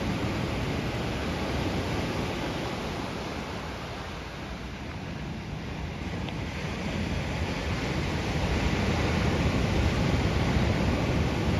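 Ocean surf washing ashore, a steady rush that eases a little around four seconds in and swells again toward the end as a wave breaks close by.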